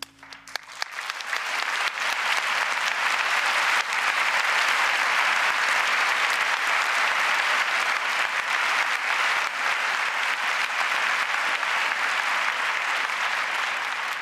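Audience applauding: a few scattered claps at first, building within about a second and a half into steady, full applause.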